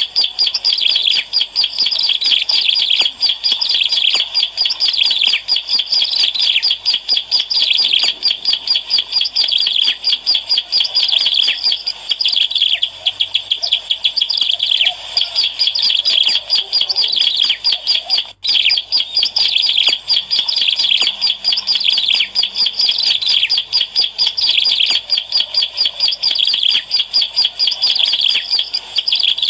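Ciblek alang-alang (a prinia) singing an unbroken stream of fast, high chirps. There is a brief break about eighteen seconds in.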